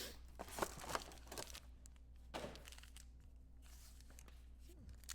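Faint crinkling and tearing of trading card pack wrappers as packs are opened, with a few light clicks and rustles of handling, mostly in the first half and again about two and a half seconds in.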